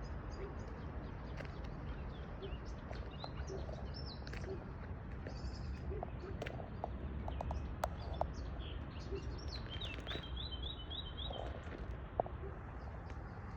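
Small birds chirping and twittering with short high calls, including a quick run of about five notes, over a steady low rushing background noise. A sharp click sounds near the end.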